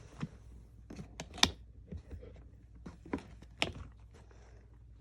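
A cardboard shoebox and its packaging being handled and unwrapped: several sharp taps and clicks, the loudest about one and a half seconds in, with light paper rustling between them.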